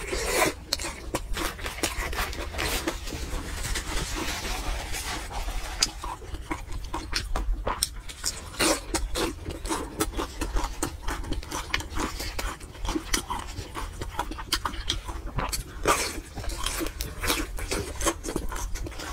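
Close-miked wet chewing and lip-smacking of a person eating fatty braised pork, a dense run of short clicks and squelches.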